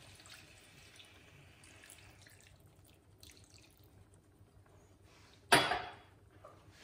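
Water poured from a measuring jug into a pan of lamb curry, with faint splashing and a wooden spoon stirring it in. About five and a half seconds in comes one sudden loud knock that dies away quickly.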